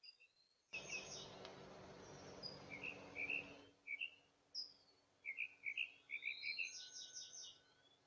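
Small birds chirping repeatedly in short quick notes. A steady hiss cuts in suddenly about a second in and stops just as suddenly about three seconds later.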